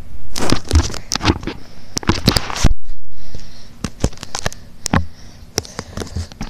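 Handling noise from a phone held close: rustling, brushing and scattered sharp clicks and knocks as fingers and fabric rub against the microphone. The sound cuts out completely for a moment near the middle.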